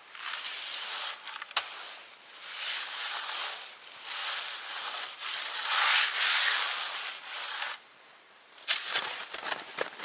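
Snow shovel scraping and shoving through heaped snow in several long strokes, loudest about six seconds in, followed by a few sharp crunches of steps in snow near the end.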